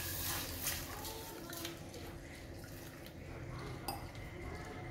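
Water poured from a steel tumbler into a steel bowl of split moong dal, loudest at the start, then a hand swishing and rubbing the wet lentils in the bowl to wash them, with small clicks against the steel.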